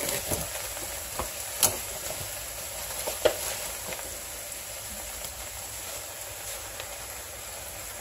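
Wet spinach sizzling and steaming in a hot skillet: a steady hiss, with a few light clicks in the first half.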